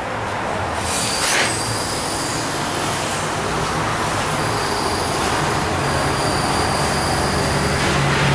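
Crank mechanism of an adjustable charcoal grill raising the steel charcoal grate: a steady metallic grinding and scraping with a thin high squeal, and a single knock about a second in.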